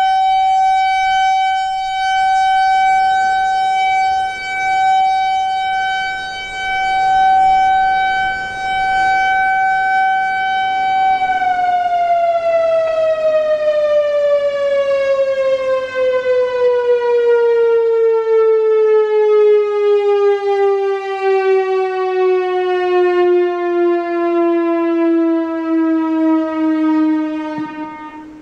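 Whelen WPS-4004 electronic outdoor warning siren sounding its steady alert tone. It holds one pitch for about eleven seconds while its loudness swells and dips, then slides steadily down in pitch in a simulated wind-down that fades near the end.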